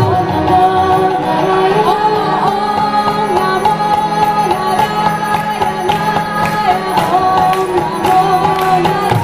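Kirtan: a woman singing a devotional chant over the steady drone of a Bina harmonium, with a mridanga barrel drum beating a steady rhythm.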